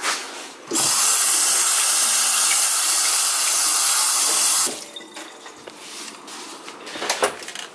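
Kitchen faucet running into a stainless steel sink while a hand is rinsed under the stream. The water comes on about a second in and is shut off after about four seconds.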